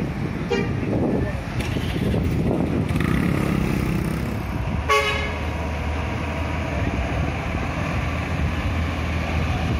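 Large bus engines running as coaches move through a bus terminal, with a short horn toot about half a second in and a louder horn blast about five seconds in.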